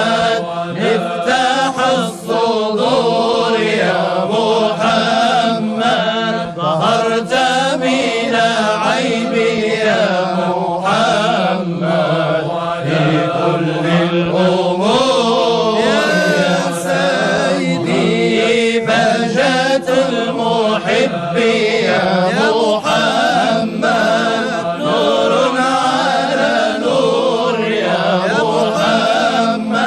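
Sufi devotional chant in praise of the Prophet Muhammad, sung in Arabic with long, winding held lines.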